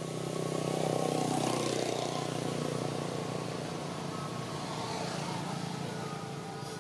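A motor vehicle passing by: its noise swells about a second in, then slowly fades.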